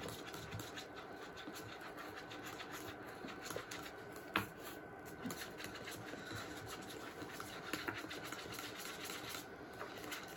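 Thick corn-syrup liquid bait mix being stirred by hand in a small container: a faint, steady, fast scratchy stirring, with a sharper click a little over four seconds in.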